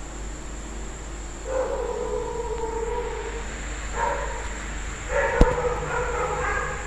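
An animal's calls: one long, steady call about a second and a half in, then shorter calls around four and five seconds, with a sharp click just after five seconds, over a faint steady high whine.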